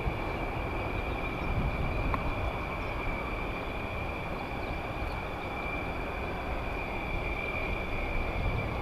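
Fighter jet engine noise: a steady low rumble with a constant high whine over it.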